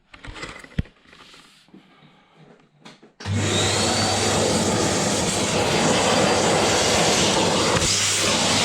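A few light handling clicks, then about three seconds in a vacuum cleaner switches on and runs with a steady loud rushing noise and a low hum, used to clean dust out of the dryer's filters.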